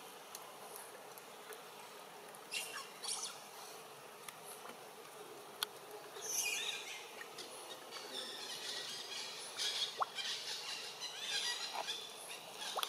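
Baby macaque squealing in short, high-pitched squeaks and chirps that start about two and a half seconds in and come thicker in the second half: distress calls as its mother wades and swims with it clinging beneath her in the water.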